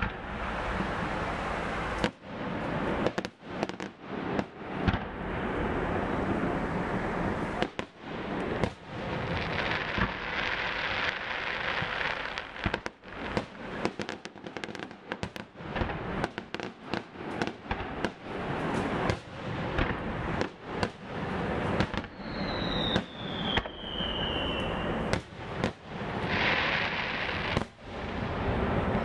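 Aerial fireworks display: shells bursting one after another in quick succession, with stretches of crackling from the stars and a falling whistle about two-thirds of the way through.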